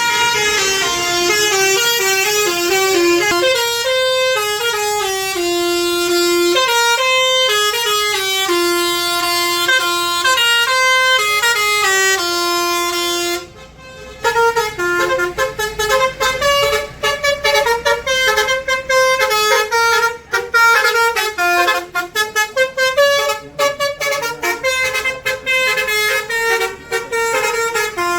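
Tour buses' 'telolet' multi-tone horns playing melodies of stepped notes: long held notes at first, then a short break about halfway through, then quicker, choppier notes.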